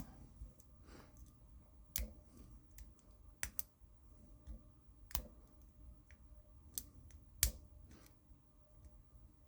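Lock pick and tension wrench working the pins of a pin-tumbler lock: small, irregularly spaced metal clicks, a handful louder than the rest.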